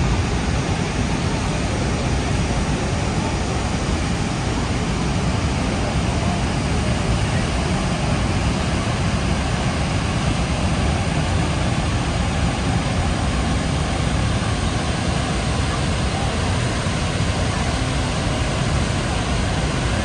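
Steady, unbroken roar of Niagara Falls' rushing water, heaviest in the low rumble.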